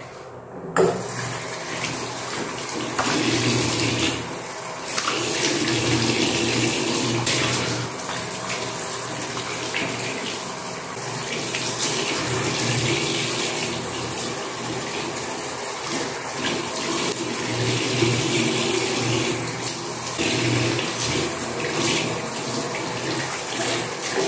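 Water running from a bathroom tap into a sink, with splashing as face-wash lather is rinsed off the face. It starts suddenly about a second in and runs on steadily.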